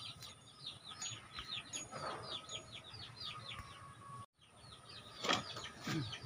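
Small birds chirping steadily, a quick run of short falling chirps several times a second. The sound cuts out for an instant about four seconds in, and a couple of louder rustling noises follow near the end.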